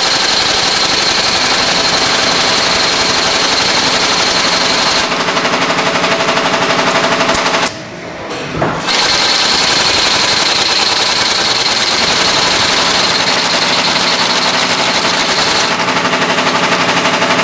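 Topeagle TSH-2619 double-needle Goodyear welt inseam chain-stitch machine running at speed, a loud rapid clatter of its awl and needle stitching through a shoe. It stops for about a second near the middle, then starts again, with a high whine during the runs.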